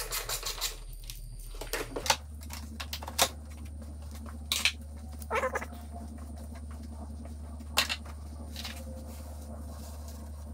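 Scattered clicks, taps and knocks of hands and tools working in a car's engine bay around the cowl and firewall, thick in the first two seconds and then single ones a second or more apart, over a steady low hum.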